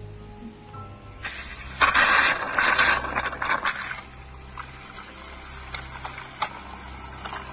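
Water gushing and splashing into a plastic automatic cattle drinking bowl as its paddle valve is pressed down. It starts suddenly about a second in and is loudest over the next two seconds, then settles into a steadier hiss of spraying water.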